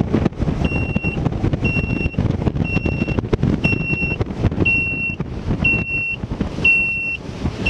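A high-pitched electronic warning alarm beeping about once a second, starting about a second in, over the low rumble and wind noise of a bass boat running at speed across open water.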